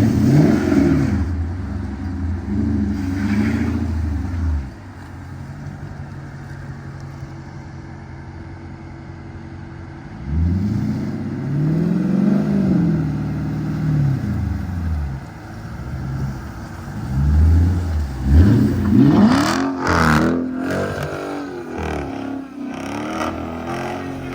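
Car engine revving hard three times, each rev climbing and falling away over a few seconds, with a quieter steady running between the first two, as the car is slid around in snow.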